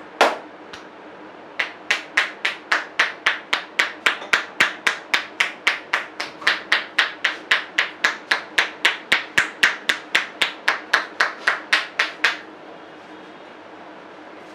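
Rhythmic percussive hand strikes of a barber's head massage, hands slapping or clapping on the head, about four a second for roughly ten seconds, after one single sharp strike at the start.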